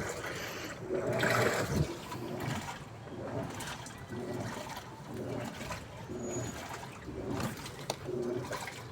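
Water rushing and sloshing inside a Daewoo washing machine, an uneven noise that swells and eases over and over.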